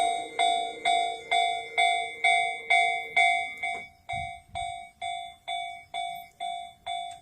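Japanese railroad crossing warning bell ringing in an even, repeated ding-ding, about two strikes a second. A lower steady hum sounds under the first half and stops about four seconds in, after which the strikes are quieter.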